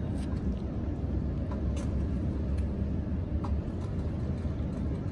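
Suzuki outboard motor idling with a steady low rumble, and a few faint knocks from gear being handled in the boat.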